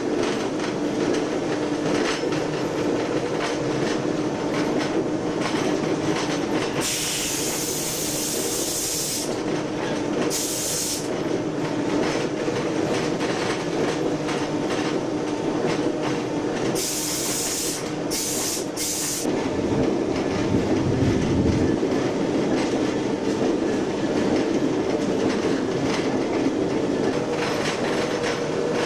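Locomotive running with a steady engine drone while its wheels click over the rail joints, heard from inside the cab. Several short bursts of hiss come and go, and about two-thirds of the way through the rumble grows heavier and louder.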